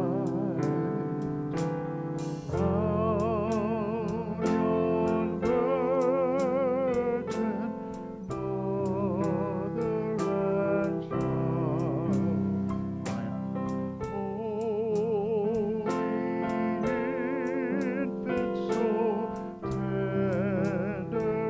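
Instrumental music: a wavering vibrato melody over sustained chords with a steady beat.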